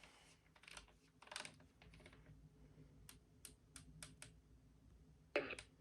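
Faint scattered clicks and taps over near silence, like keys or buttons being pressed: a few soft ones in the first couple of seconds, a quick row of about six sharp clicks in the middle, and a louder pair near the end.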